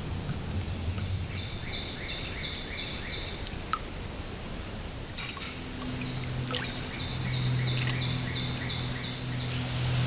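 A small songbird singing two bursts of about six quick, evenly repeated chirps, over a steady high thin tone, with a low hum coming in about halfway.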